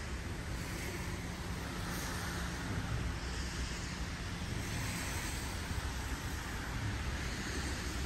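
Steady outdoor street noise: a rushing hiss and low rumble of traffic, swelling and fading slightly as vehicles pass.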